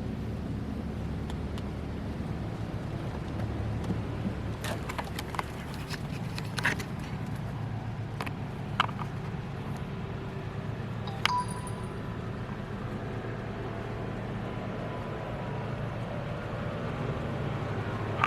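Occasional light clicks and knocks over a steady low rumble. One sharper knock about eleven seconds in leaves a short, thin ringing tone.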